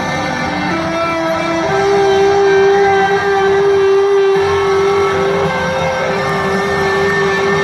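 Live band playing an instrumental passage without vocals: long held notes that shift pitch every second or two over a steady, droning wash of guitar and drums.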